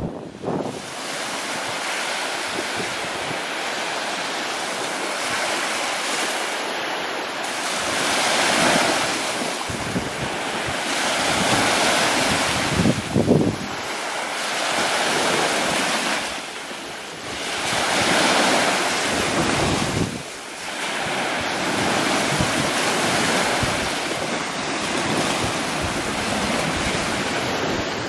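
Wind buffeting the microphone in gusts that swell and fade every few seconds, over the wash of choppy sea water.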